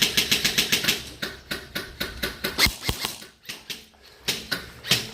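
Airsoft guns firing on full auto: a rapid string of sharp clicks at about ten a second, thinning to scattered shots, with a brief lull just past the middle before a few more shots near the end.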